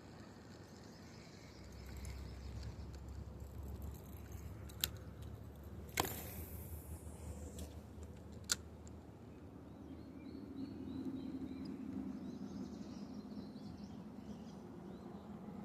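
Three sharp clicks, the middle one followed by a brief fading swish, over faint outdoor background with a low rumble early on and a faint low hum later.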